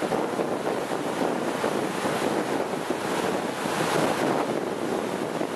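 Steady rushing wind on the microphone mixed with the wash of waves, with no distinct tones or single events.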